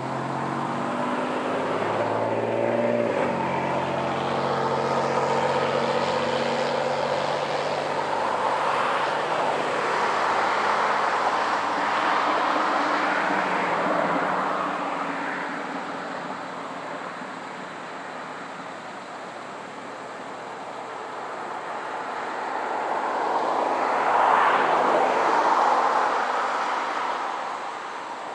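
ACA Screamer dual-tone rotating warning siren sounding the Attack signal, a wailing tone. Its sound swells and fades as the rotating head sweeps past, loudest about a third of the way in and again near the end.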